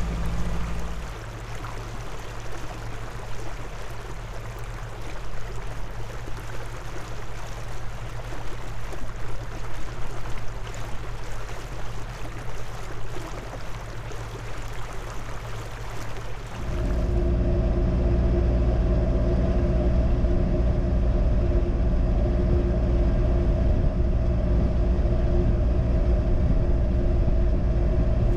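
Narrowboat's diesel engine running steadily under way, a low even hum with a steady rushing noise over it. About two-thirds of the way through, the engine hum becomes louder and fuller.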